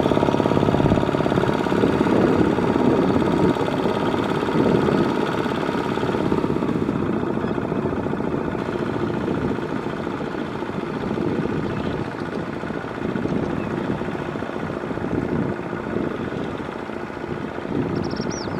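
Single-cylinder Kubota ZT155 diesel engine of a two-wheel walking tractor running steadily under load as its cage wheels churn a flooded rice paddy. It gets a little quieter after about six seconds.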